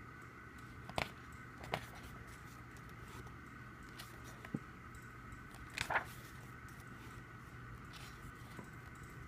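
A few short taps and crackles from an album and its paper contents being handled, over a steady faint hum; the loudest is about six seconds in.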